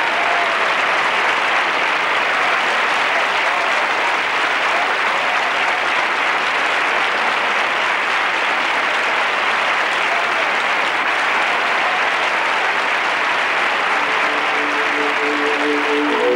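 A large audience applauding, swelling in the first second and then holding steady without a break. About two seconds before the end, music with long held notes starts under the applause.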